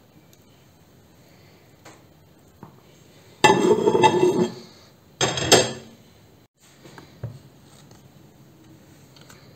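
Dishes and metal kitchen utensils clattering and scraping in two loud bursts around the middle, the first about a second long and the second shorter, with a few light knocks either side.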